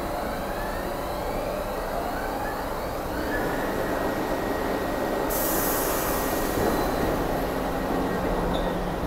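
New York City subway train pulling out of the station: the motor whine rises in pitch over the first few seconds under a steady rumble of the cars. About five seconds in a sudden hiss sets in.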